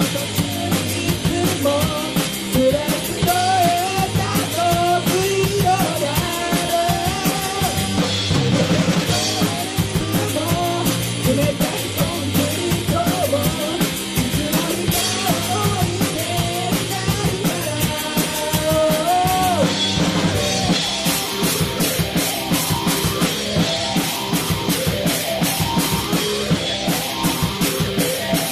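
Rock band playing live: a sung lead vocal over distorted electric guitar and a Pearl drum kit, with bass, second guitar and backing chorus from a backing track. About two-thirds of the way through the singing stops and the band plays on instrumentally with a steady, driving drum beat.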